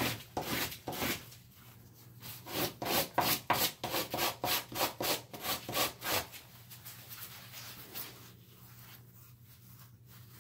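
Hand sanding of a harmonica mouthpiece slider's edges and corners on sandpaper: quick back-and-forth rubbing strokes, a short run at the start, then a fast even run of about four strokes a second that stops about six seconds in, leaving only faint handling rustle.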